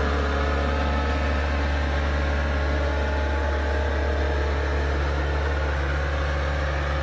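Backhoe engine running at a steady speed, a constant low drone with no breaks.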